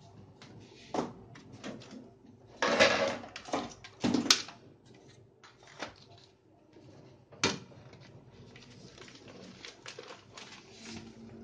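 Handling sounds of an LCD monitor's power supply board being lifted out of its sheet-metal chassis: scattered clicks and knocks, with two louder clattering clusters about three and four seconds in and a sharp click about seven and a half seconds in, then softer rustling.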